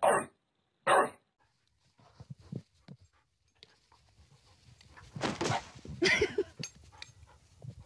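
An English bulldog barking: two loud, short barks about a second apart. Later comes a few seconds of rustling noise with a few brief pitched sounds.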